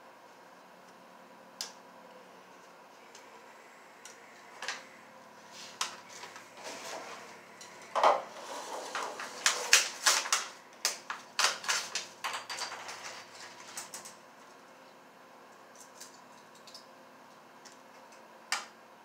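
Small tools and parts being handled on a table: scattered sharp clicks and clatter, with a busy run of quick clicks and rustling in the middle.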